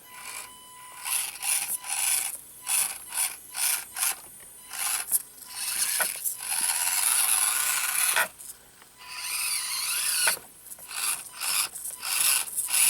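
Axial SCX24 micro crawler's small brushed motor and gear drivetrain whining in short start-stop bursts as it is throttled on and off, with a longer continuous run a few seconds in and another shorter one later.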